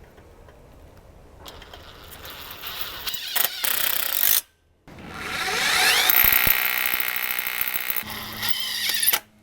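Cordless power drill driving a screw to fasten the top of a screen track, in two runs. The first builds up and cuts off suddenly about four seconds in. The second, longer run starts with a rising whine and stops just before the end.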